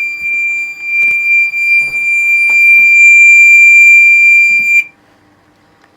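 Gent Xenex fire alarm sounding a loud, steady, high-pitched tone that cuts off abruptly about five seconds in, with a few faint clicks during it.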